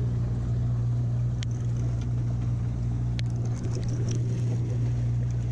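Fishing boat's engine running with a steady low hum, with a few light clicks.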